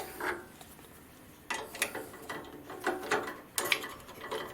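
Irregular metal clicks and rattles of tools being handled as a drill bit is changed: a brief clatter at the start, then a longer run of clicks after a short pause. No drill is running.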